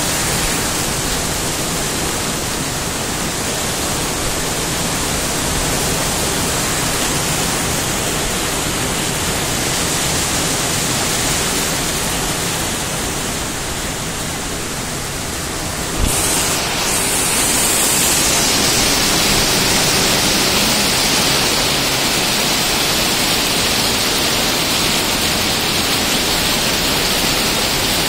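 Steady rain pouring down in a thunderstorm, an even hiss with no breaks. A single sharp crack comes a little past halfway, and the rain sounds brighter after it.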